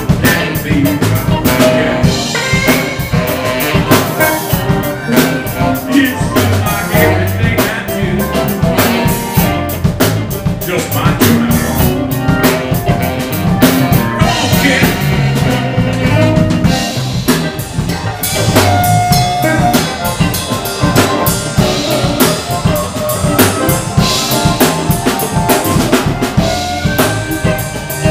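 Live blues band playing an instrumental passage: saxophone over electric guitar and bass, with a drum kit keeping a steady beat.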